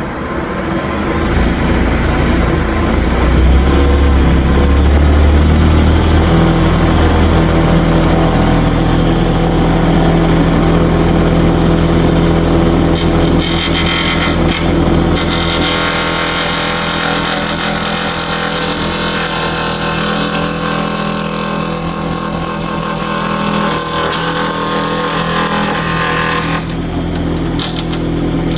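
Wood lathe motor running with a glued-up wooden mallet blank spinning on it, building up over the first few seconds to a steady hum. A harsher hiss joins from about 13 seconds in and comes and goes.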